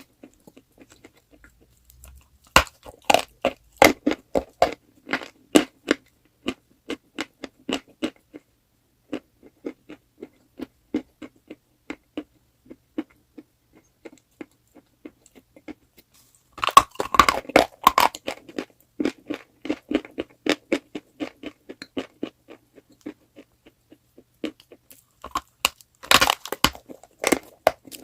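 Chalk being bitten and chewed, a crisp crunching made of many sharp crackles. Dense bursts of crunching come about two and a half seconds in, again around seventeen seconds and near the end, with sparser crackles of chewing in between.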